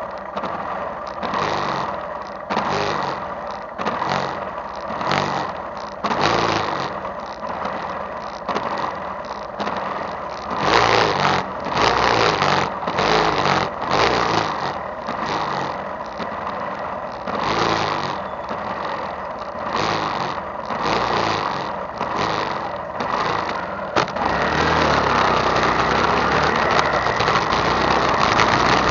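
Motorcycle engine idling while the bike waits, picked up by a handlebar-mounted action camera's microphone, with irregular swells of noise. About 24 seconds in, the sound jumps to a louder, steady rush as the bike rides off.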